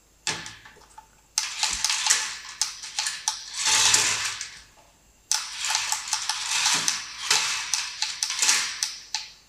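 Toy 2WD RC off-road truck's small electric motor and plastic gearbox whirring and rattling as it is driven, in a brief burst at the start and then two runs of a few seconds each, stopping between them.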